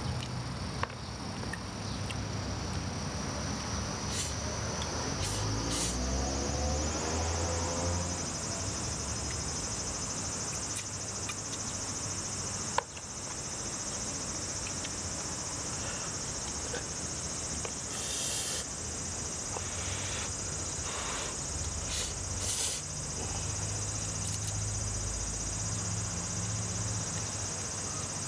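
Insects trilling steadily in a high, even buzz, with noodles being slurped and chewed now and then. A single sharp click sounds about thirteen seconds in.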